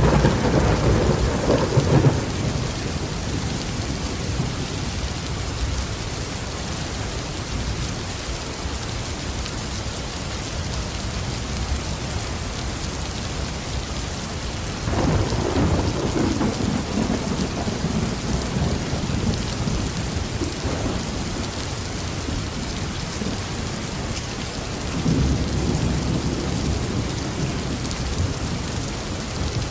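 Heavy rain falling steadily on a roof, with rolls of thunder. One rumble fades away in the first couple of seconds, another breaks suddenly about halfway and rumbles on for several seconds, and a shorter one swells near the end.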